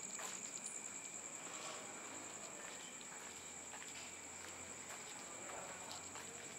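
Night insects trilling: a steady high-pitched buzz with a fine pulse, and a second, fainter tone lower down. A few faint ticks sound here and there.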